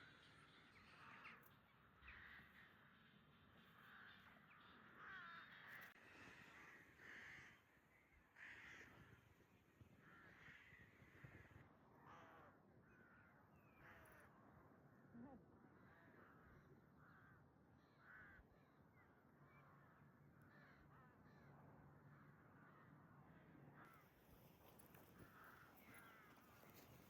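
Faint bird calls outdoors: many short calls one after another, harsh and crow-like.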